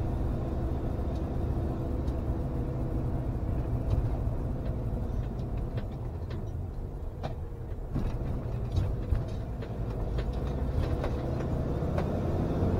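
Motorhome driving slowly, heard from inside the cab: a steady low engine and road rumble, with a few short knocks and rattles about seven to nine seconds in.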